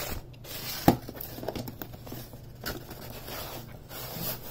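Cardboard graphics-card box being handled and opened: card and paper scraping and rustling as flaps are pulled and folded, with one sharp tap about a second in.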